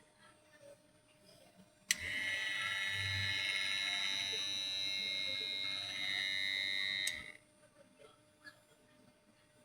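Small electric motor running with a steady high whine, switched on about two seconds in and cut off about five seconds later, its pitch stepping up slightly just before it stops.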